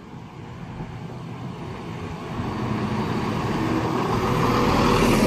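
Class 170 Turbostar diesel multiple unit approaching, its diesel engine note and wheel noise growing steadily louder, with a steady engine hum coming in about halfway through.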